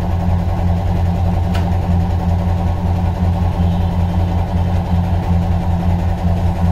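Steady low electric hum of a heat-embossing press running while it holds a garment under pressure. One short click comes about a second and a half in.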